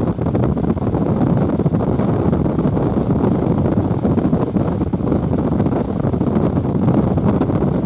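Steady low rumble of strong thunderstorm wind and wet-road driving noise, heard from inside a moving car.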